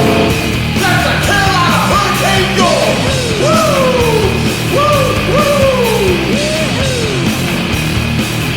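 Hockey goal song: loud punk-style rock music with yelled, swooping vocal whoops over a full band.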